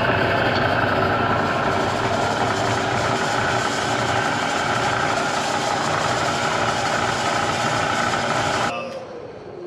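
Bridgeport Series 1 2 HP variable-speed mill head running with a loud, rough mechanical racket, the knocking and clanking of a worn-out head: a cracked, undersized drive belt, bad bushings in the motor's floating pulley and bad bearings. The noise stops near the end.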